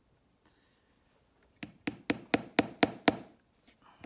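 Hammer driving a nail into a leather boot sole: a quick run of about seven light strikes, about four a second, starting a second and a half in.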